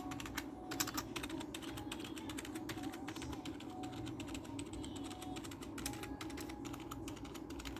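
Keys of a K-Snake KM320 keypad being pressed over and over, a run of irregular clicks, densest in the first half, over a steady low hum.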